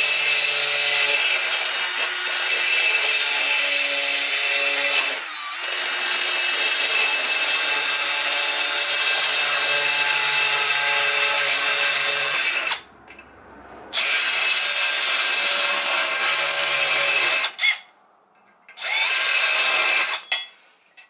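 Milwaukee Fuel cordless drill running a reaming bit into an aluminium part to trim it: a steady motor whine with cutting noise. It stops for about a second twice in the second half, then starts again each time.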